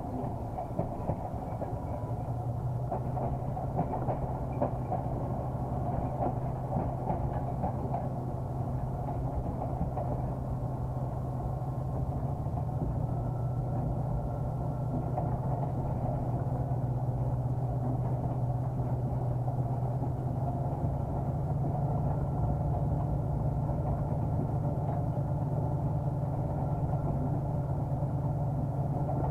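LDH1500 diesel-hydraulic locomotive's diesel engine running steadily under way with rumbling wheel and track noise, heard from the cab; the engine's low hum grows gradually louder.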